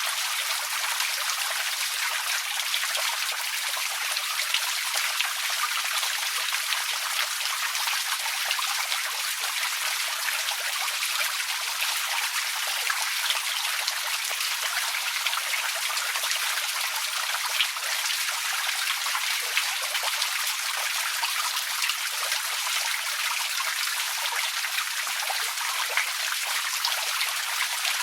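Outdoor water fountain running: falling water splashing in a steady rush, with no low rumble.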